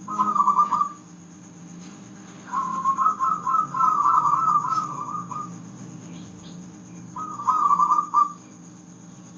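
Zebra dove (perkutut) cooing in rapid, trilled phrases: a short phrase at the start, a long one of about three seconds, and another short one near the end, over a faint steady low hum.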